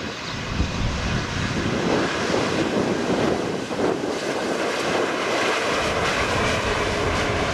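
Airbus A321 jet airliner's engines, a loud steady rushing noise that swells at the start and then holds, as the aircraft lands, with wind buffeting the microphone.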